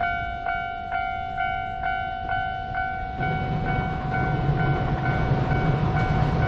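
Railway level-crossing warning bell dinging steadily about twice a second. About three seconds in, the low rumble of an approaching freight train comes in and grows under it.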